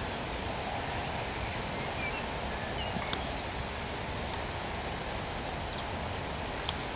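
Steady outdoor rushing noise, like wind through grass and leaves, with a few faint short bird chirps about two to three seconds in and a few sharp clicks.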